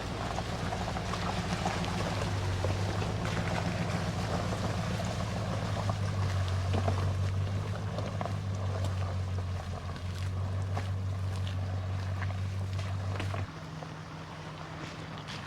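Pickup truck carrying a loaded camper driving slowly over a rough, rutted dirt road, heard from inside the cab: a steady low engine drone with road noise and scattered knocks and rattles as the truck rocks. About 13 seconds in the engine note drops and quietens.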